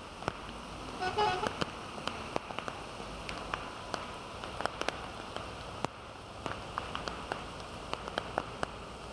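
Heavy rain pouring steadily, with frequent sharp taps of drops striking close by. A short pitched sound rises briefly about a second in.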